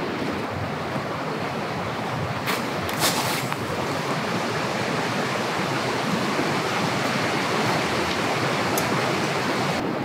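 Steady outdoor rushing noise, with a few brief clicks about two and a half to three and a half seconds in.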